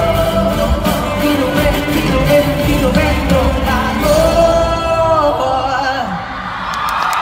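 Live pop concert music: a singer holding long sung notes over a full band with a steady beat, heard from the audience in a large arena. A long held note a little past halfway bends down, and the band drops back briefly near the end.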